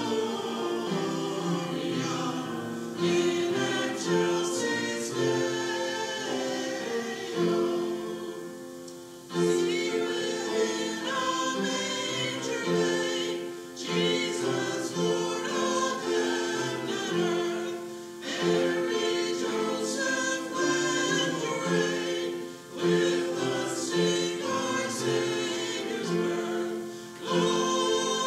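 Small church choir singing, in phrases of a few seconds each with short breaks between them.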